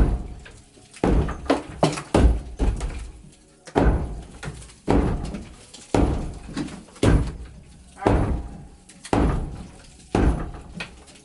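Sledgehammer blows, about one a second, each a heavy thud with a short ring-out, breaking at the old footing.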